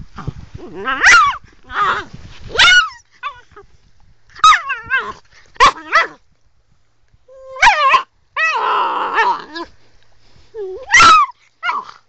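Sloughi puppy barking and yapping in about ten short, high pitched calls, with a longer rough, growling snarl a little past the middle.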